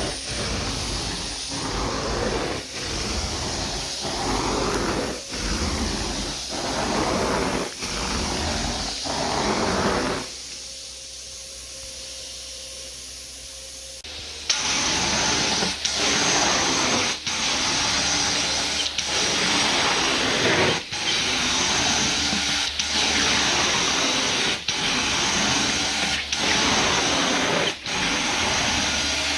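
Carpet-cleaning extractor's vacuum wand sucking water from carpet in steady back-and-forth strokes, its rushing noise dipping briefly at the end of each pass, about once every second or so. About ten seconds in, the suction drops to a low hum for a few seconds, then starts again louder and hissier.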